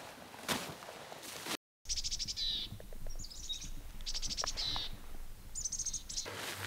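Footsteps in snow and dry grass, then small birds giving four short, high, rapid trilled calls about a second apart.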